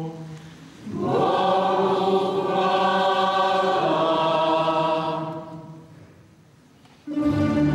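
Choir and congregation singing the response to the sung dismissal: many voices hold a chord for about four seconds, then fade away. About seven seconds in, a tamburica ensemble strikes up.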